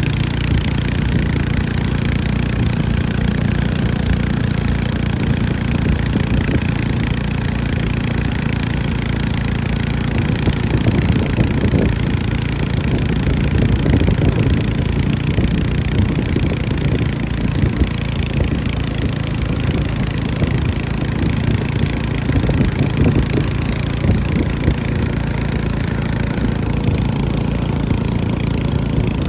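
Small engines of racing setinting longboats running steadily.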